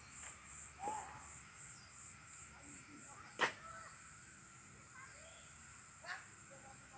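Steady high-pitched drone of insects, with a faint pulsing over it, and a few short chirps. A single sharp click about three and a half seconds in is the loudest sound.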